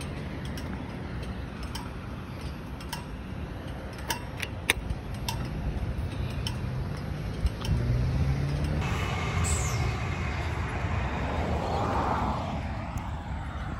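Electric passenger train passing, its steady hum and rumble growing louder about halfway through, over street noise and a few light taps.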